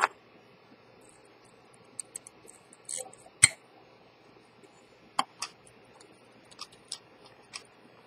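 Light, scattered clicks and taps from handling an Elgin pocket watch, fingers and metal case knocking as it is turned over. The sharpest click comes about three and a half seconds in, another near five seconds.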